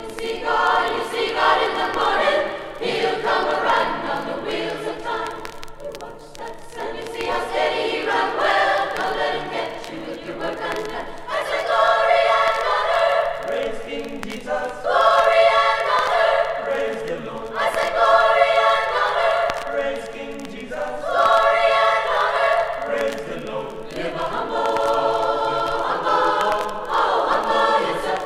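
High school chorus singing in phrases of two to three seconds with short breaks between them, heard from a 1965 vinyl LP recording.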